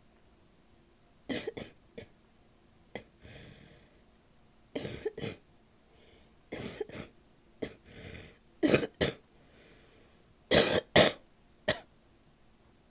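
A woman coughing wet, barky coughs in short bouts of one to three, with breaths drawn in between bouts; the loudest bout comes near the end.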